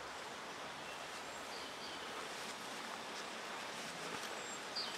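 Outdoor ambience: a steady even hiss with a few faint, short bird chirps, one near the end.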